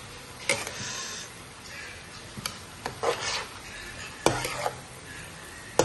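Slotted metal spatula stir-frying beef and leafy greens in a frying pan: scraping and tossing with sizzling underneath, punctuated by a few sharp clacks of the spatula against the pan.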